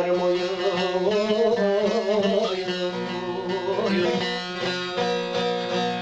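Turkish âşık folk song music: a bağlama (long-necked saz lute) plays the melody between sung lines over a steady low drone.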